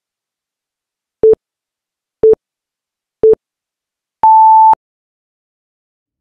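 Countdown timer beeping: three short beeps a second apart, then one longer, higher-pitched beep as the count runs out.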